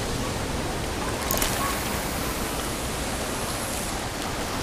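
Steady rushing noise of wind and surf, with one brief click a little over a second in.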